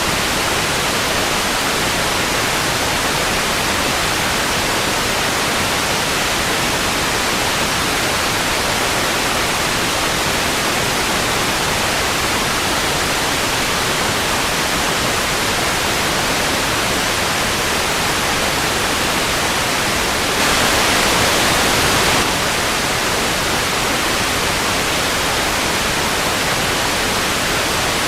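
Television static: a steady, even hiss, which grows a little louder and brighter for about a second and a half some twenty seconds in.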